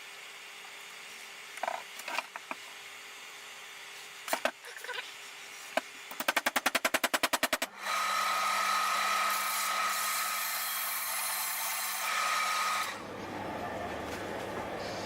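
A few scattered knocks, then a fast rattle of about ten sharp clicks a second for a second and a half, then a power tool running steadily with a high whine for about five seconds before cutting off.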